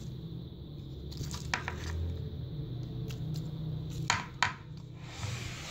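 A serving spoon scooping a thick creamy fruit-and-yogurt mixture out of a bowl, with scattered clicks and knocks of the spoon against the bowl, two sharper ones about four seconds in, over a low steady hum.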